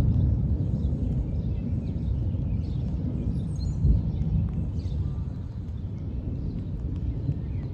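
Distant thunder rolling and slowly fading away, a deep low rumble. Faint bird chirps come through above it.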